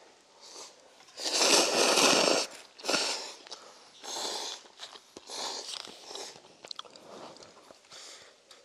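People slurping and chewing instant cup ramen noodles: one long, loud slurp about a second in, then shorter slurps and chewing sounds.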